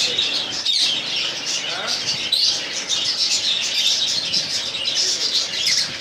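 Many caged birds chirping and chattering at once: a steady, dense chorus of short high chirps with no single call standing out.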